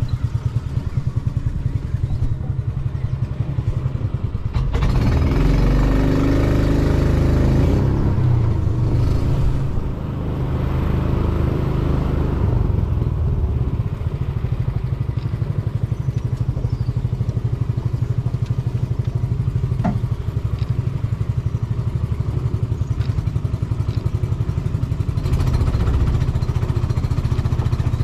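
Small engine running steadily close by with a fast, even pulse, louder for a few seconds about five seconds in.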